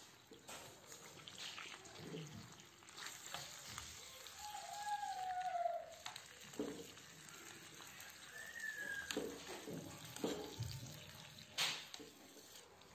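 A metal fork scraping and clicking against a clay tajine as raw, spiced meat pieces are turned and pushed around, with a sharp click near the end. A couple of short squeaky tones sound in the middle.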